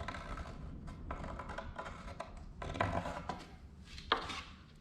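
Carpenter's pencil scraping on steel plate while tracing around a bucket ear, in several short scratchy strokes with handling noise, and a sharp click about four seconds in.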